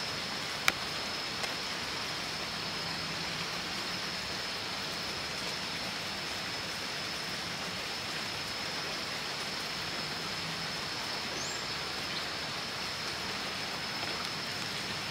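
Steady hiss of rain falling, with a thin, steady high-pitched tone above it. A single sharp click comes about a second in.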